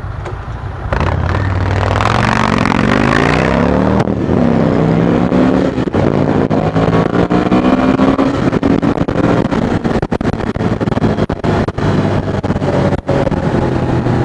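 Motorcycles pulling away from a standstill: a chopper with a loud, deep-sounding exhaust and a Ducati Monster 620 air-cooled V-twin. Engine pitch climbs through the gears from about a second in, then holds at a steady ride, with wind rush on the helmet microphone.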